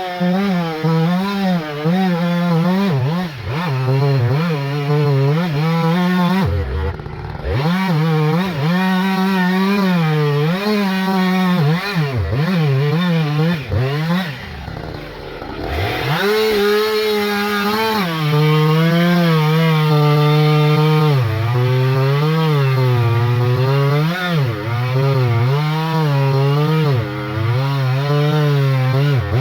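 Two-stroke chainsaw cutting into a big white pine at high revs, its pitch wavering as the chain bogs and frees in the wood. The engine drops off briefly about seven seconds in and again for a couple of seconds around the middle, then revs back up into the cut.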